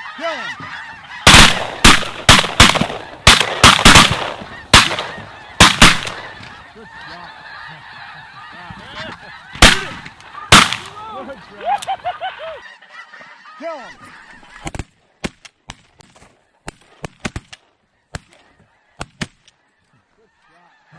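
A big flock of snow geese honking in a dense, steady chorus, while a volley of shotgun blasts goes off: about a dozen shots in quick succession from about one to six seconds in, then two more shots a little later. The goose chorus then fades, and the last third is near silence broken by scattered sharp cracks.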